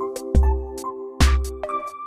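Background electronic music with a steady beat, deep bass notes and held synth chords.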